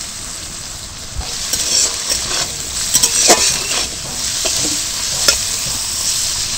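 Diced carrot and green capsicum sizzling in hot oil in a steel kadai, stirred with a metal spatula that scrapes and clinks against the pan several times. The sizzle grows louder after about a second and a half.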